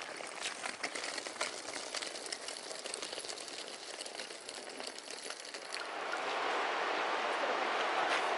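Irregular faint clicks and crackles over a soft hiss, then about six seconds in a steady, dense rushing of river water takes over.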